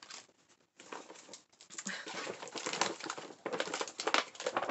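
Bags and packaging rustling and crinkling as they are rummaged through, louder from about a second in.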